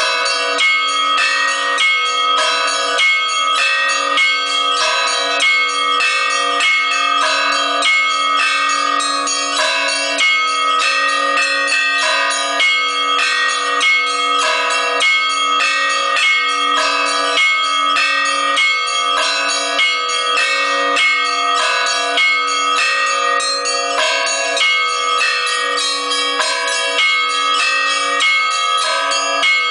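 Orthodox church bells rung in a peal: several small bells struck in a quick, rhythmic pattern, ringing over the steady hum of a deeper bell.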